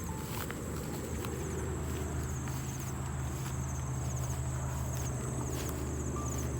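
Footsteps walking along a rice-field path, with insects trilling steadily high above and a steady low drone underneath.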